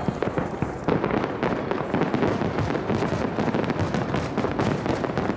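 Aerial fireworks going off in a dense, continuous barrage: many bangs and crackles a second, overlapping without a break.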